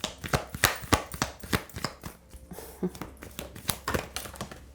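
Tarot cards being handled and shuffled: an irregular run of crisp clicks and taps.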